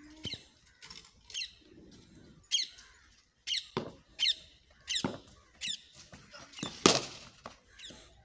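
Birds calling over and over: short, high, falling chirps and squawks about every half-second to a second. A single sharp knock comes about a third of a second in, and a louder, harsher squawk near the end.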